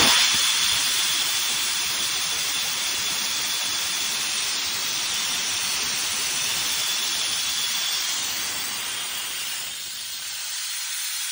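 Compressed air hissing steadily out of the leaking quick release valve in the front air brake system of a 1973 American LaFrance Pioneer fire engine, easing a little near the end. The leaking valve is the cause of the truck's air brake failure.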